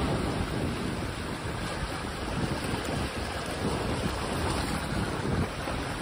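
Small waves breaking against a rock jetty and washing over sandy shallows, a steady surf wash. Wind buffets the microphone with a low, gusting rumble.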